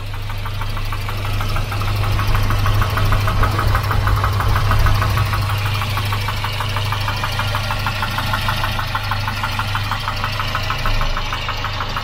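Volvo B230 2.3-litre four-cylinder engine running with a fast, even, loud knocking rattle: piston slap, which slaps like that whatever the engine temperature.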